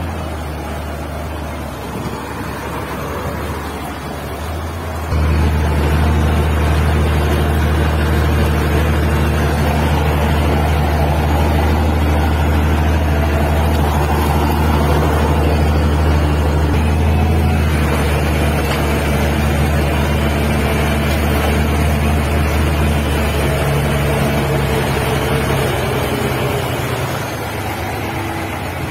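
Heavy diesel engine running hard under load while hauling a mired truck through mud, a deep steady drone that jumps louder about five seconds in.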